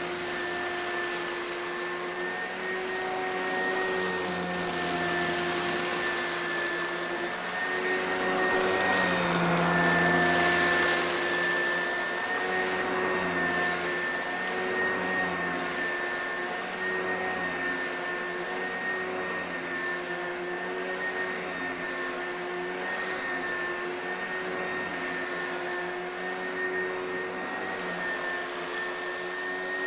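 Upright vacuum cleaner running steadily on a rug, a motor hum with a high whine that swells and eases as it is pushed back and forth. For about the first twelve seconds a gritty high hiss of scattered grains being sucked up rides on top, then thins out as the rug is cleared.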